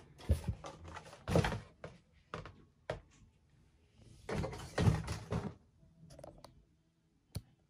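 Cardboard box and packaging being handled: a series of knocks and thumps with short bursts of rustling, the loudest stretch about four to five and a half seconds in.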